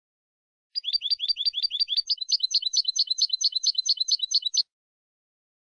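European goldfinch (jilguero) singing on a clean, noise-free recording. It gives a run of about eight quick, identical repeated notes, then switches to a faster series of different repeated notes, and stops abruptly after about four seconds.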